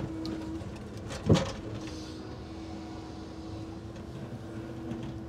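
Timber crane grapple handling a bundle of square-timber crane mats, with one sharp wooden knock about a second in. Under it runs the steady hum of the crane's hydraulics and the truck's engine.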